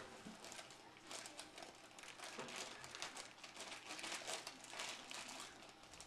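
Pancake-mix packaging crinkling and rustling in irregular bursts as the dry mix is shaken and emptied into a bowl.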